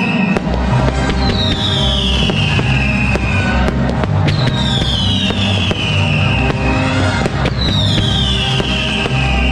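Fireworks bursting and crackling over loud music with a steady bass line. A falling tone in the music comes back about every three seconds.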